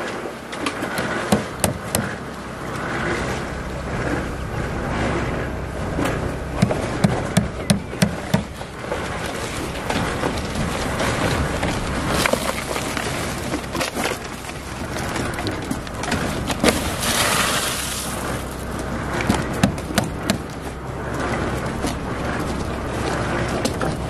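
Concrete roof-pour work noise: a motor running steadily under scattered sharp knocks and scrapes of tools and a wheelbarrow on wet concrete and rebar, with a quick run of knocks about seven seconds in and a hissing scrape a little past two-thirds of the way through.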